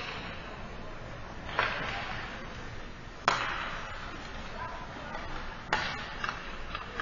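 Three sharp hockey-puck cracks, from sticks striking pucks and pucks hitting the boards, each followed by a long echo in the ice arena, with a few lighter clicks after the third.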